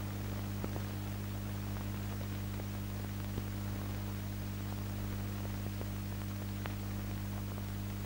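Steady electrical hum under a faint hiss, with a few scattered faint clicks: the background noise of an old film soundtrack, with no narration or music.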